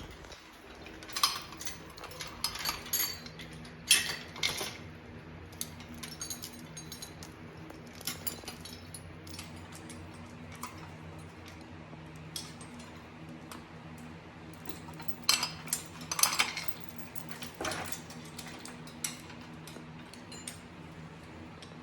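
Scattered metallic clinks and clatter of tools and parts being handled during transmission disassembly, bunched in two spells, over a faint steady hum.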